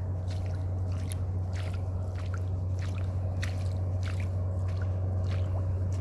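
Footsteps squelching and crunching on wet beach sand, short irregular steps about two a second, over a steady low hum.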